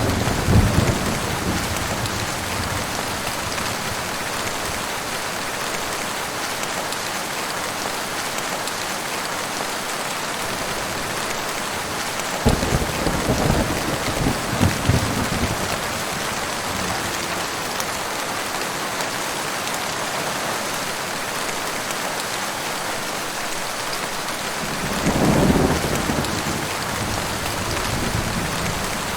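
Heavy rain falling steadily, with rolls of thunder rumbling low at the start, about halfway through and again near the end.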